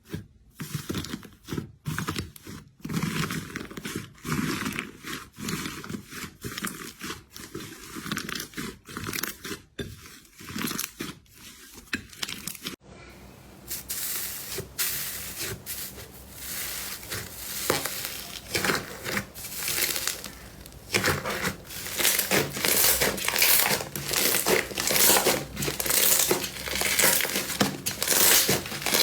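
Slime being squeezed and pressed by hand, giving a dense run of small pops and crinkles. About halfway through, it switches to another slime clip whose pops are brighter and get louder toward the end.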